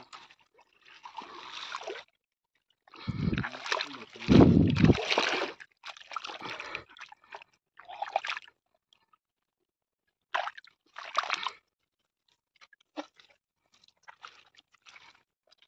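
A bare hand digging and scooping in wet mud and shallow muddy water: irregular splashing and squelching, loudest about three to five seconds in, then shorter, sparser sloshes.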